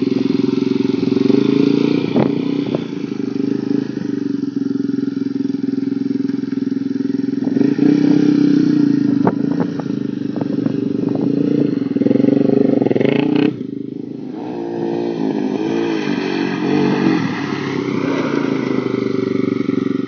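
Single-cylinder four-stroke ATV engine running and revving as the quad works through a mud puddle, with occasional knocks and clatter. About two-thirds of the way through the engine note drops suddenly, then rises and falls in quick wobbles.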